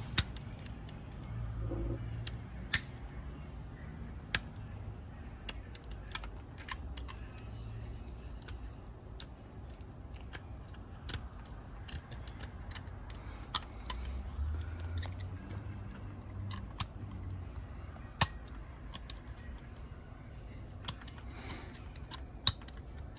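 Irregular light metallic clicks and scrapes as a knife trims excess solder from a freshly soldered N connector. About halfway through, a faint steady high hiss comes in under them.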